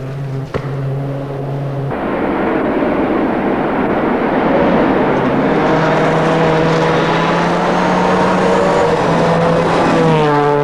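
Rally car at full throttle on a gravel stage, its engine and the hiss of gravel under the tyres growing louder as it approaches, then passing close by near the end with a sharp drop in engine pitch.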